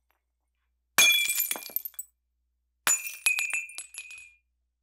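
Glass-shattering sound effects: a crash about a second in, then two more in quick succession near the three-second mark, each followed by the tinkle of shards settling and fading.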